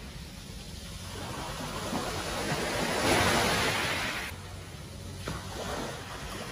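Sea waves breaking on a beach: a wave swells and washes in about three seconds in and falls away a second later, with a smaller surge near the end.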